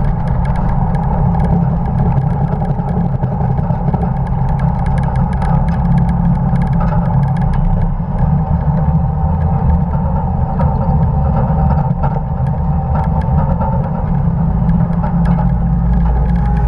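1950 Dodge pickup truck running at race speed, a steady low rumble of engine and road noise with many small rattles.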